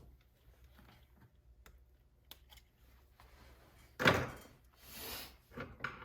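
Hands handling parts and tools on a workbench: faint small clicks, one loud knock about four seconds in, then a brief rustle and a couple of small clicks near the end.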